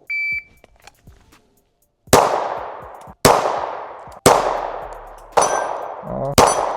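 A shot timer's short electronic beep, then about two seconds later five pistol shots roughly a second apart, with steel targets ringing after hits.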